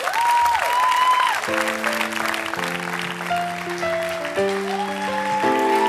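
Live band beginning a slow song, with held chords changing about once a second, over studio-audience applause. A couple of high gliding notes sound near the start.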